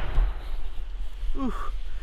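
The echo of gunshots dying away, over a steady low rumble, then a brief voice sound about a second and a half in.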